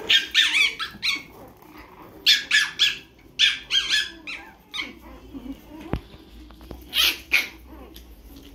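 Young chihuahua and toy poodle puppies yipping in short, high-pitched bursts as they play, in three clusters: at the start, through the middle, and again near the end. A single sharp click comes just before the last cluster.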